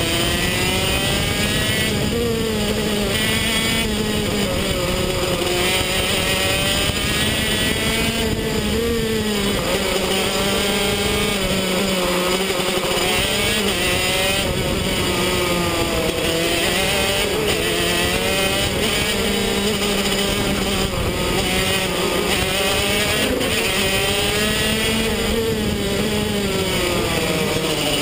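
125cc two-stroke KZ shifter kart engine at racing speed, close to the microphone, its pitch rising and falling again and again as it revs out and drops back through the corners.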